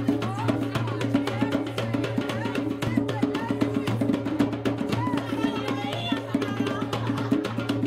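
A group of hand drums played together in a fast, steady rhythm, with people's voices over the drumming.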